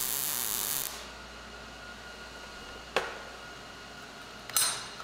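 Welding arc on a small sheet-steel part, cutting off about a second in. It is followed by a faint steady hum, a single sharp click near the middle, and a brief hiss near the end.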